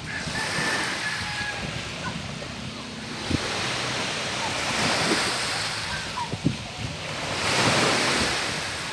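Small waves washing onto a pebble beach, swelling and falling back about every three seconds.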